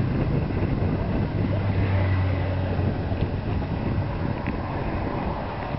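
Wind buffeting the microphone of a camera carried by a rider on a moving road bicycle, a steady rushing noise, with a low drone that swells briefly around two seconds in.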